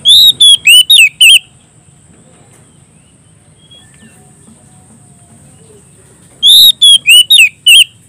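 A caged oriental magpie-robin (kacer) sings two short, loud phrases of about five sweeping whistled notes each, one at the start and one near the end. This is the full-voiced 'ngeplong' song a kacer uses to call out to rivals.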